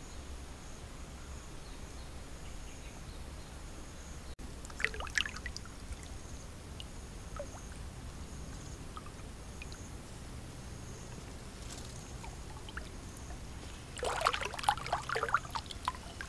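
Splashing in shallow muddy water as a big catfish thrashes: a short flurry about five seconds in and a longer, louder bout near the end. A faint, steady, high insect drone runs underneath.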